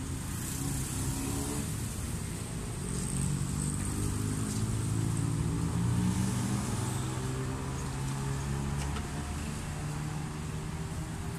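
A motor vehicle engine running nearby in road traffic, its low hum rising and growing louder about halfway through, then easing off.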